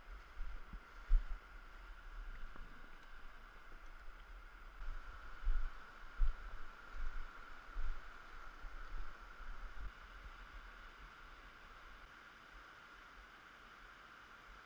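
Steady rush of a shallow mountain river running over rocky rapids. Irregular low bumps on the microphone during the first ten seconds or so, then only the even rush of water.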